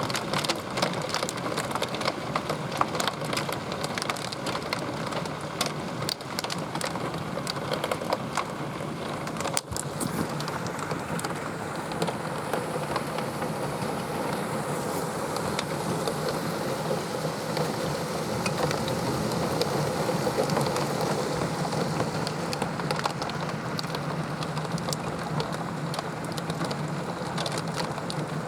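Very heavy rain pouring down in a steady rush, dotted with many sharp hits of drops striking surfaces close by, most of them in the first ten seconds or so.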